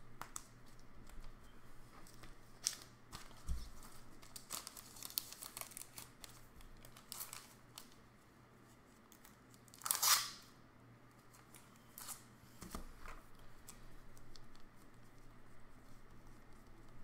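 Trading cards in plastic top-loaders and cases being handled and set down on a table: scattered clicks, taps and scrapes, with one louder swishing scrape about ten seconds in.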